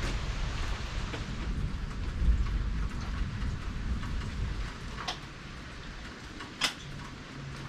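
Heavy rain falling steadily over a low rumble, with a few sharp clicks near the end.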